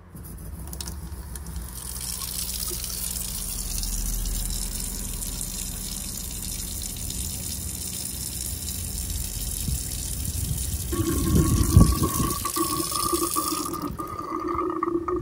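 Water running from a camper van's kitchen tap into the sink, a steady rushing. About eleven seconds in a steady hum joins the water sound.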